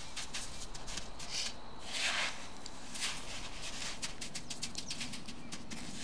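Coarse sea salt crunching and rustling as hands scoop it and pack it over a whole fish: many quick gritty crackles, with a longer hiss of pouring grains about two seconds in.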